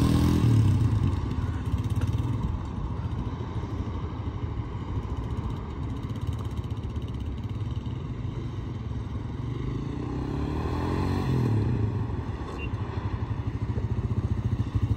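Small 150 cc motorcycle engine running as the bike rides away and back. It revs up just after the start, fades with distance, then grows louder again about ten to twelve seconds in and settles into a close, even putter near the end.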